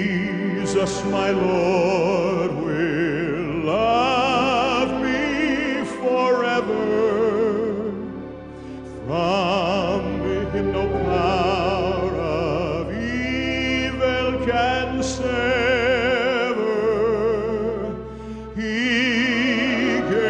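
Worship music: a singing voice with strong vibrato in long held phrases over steady sustained accompaniment, with brief pauses between phrases.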